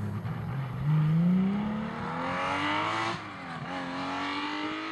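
Porsche rally car engine accelerating hard, its pitch climbing, then a sharp drop at an upshift about three seconds in, and climbing again.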